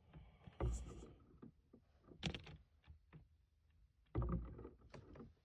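A few irregular dull thumps with rustling, the loudest about half a second in and again about four seconds in.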